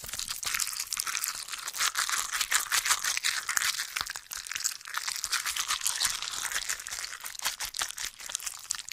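A Spirit Halloween Reaching Hand animatronic giving off a dense, steady crackling and crunching made of many fine, high-pitched clicks.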